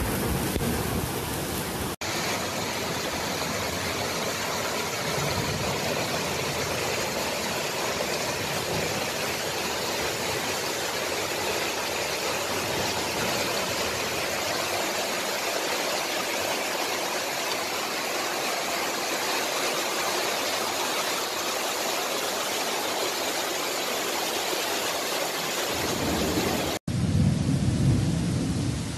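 Steady rushing hiss of torrential floodwater and heavy rain, broken by two abrupt cuts. The last couple of seconds carry a louder, deeper noise.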